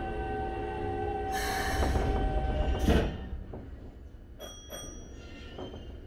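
Toei 5300 series train's Mitsubishi GTO-VVVF inverter and traction motors whining with several steady tones over the rumble of the wheels, with a burst of hiss in the middle. About three seconds in the whine cuts off suddenly as power is shut off, leaving quieter running noise and a few clicks.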